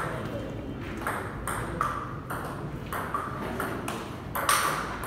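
Table tennis rally: the celluloid ball clicks sharply off the paddles and the table in quick succession. The loudest hit comes about four and a half seconds in.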